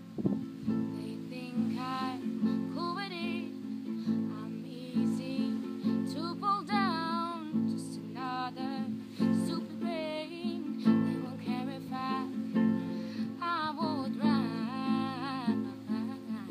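Acoustic guitar strummed steadily in chords, with a woman's voice singing phrases over it at intervals.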